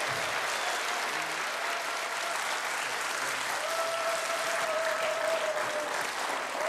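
Studio audience applauding steadily, with a thin held tone over it that grows clearer about halfway in.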